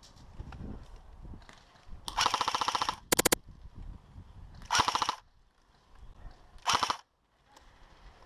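Airsoft electric rifle firing on full auto in four bursts of rapid clicks. The first burst, about two seconds in, is the longest at nearly a second. The others are short.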